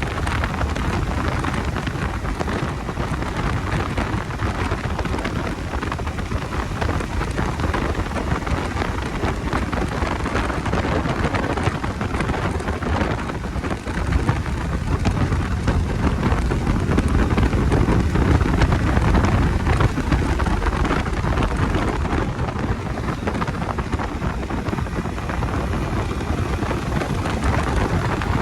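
Wind noise rushing over the microphone of a Bajaj Dominar 250 motorcycle under way, a steady low rush that swells a little about two thirds of the way through.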